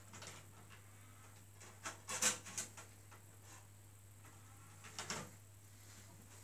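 A few short knocks and clicks from handling things at the TV stand: a cluster about two seconds in and another about five seconds in, over a faint steady low hum.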